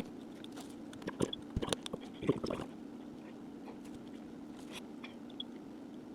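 Irregular small clicks and taps, as of a phone's small parts and repair tools being handled, over the first two or three seconds; after that only a faint steady low hum with an odd soft tick.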